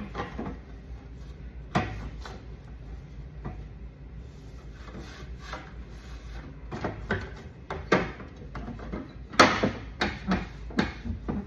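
Scattered knocks, clatter and rubbing as refrigerator parts are handled and wiped down during cleaning. A sharp knock about nine and a half seconds in is the loudest, with several more packed between about seven and eleven seconds.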